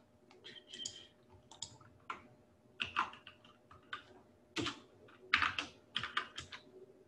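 Computer keyboard keystrokes in short irregular bursts, typing a search term.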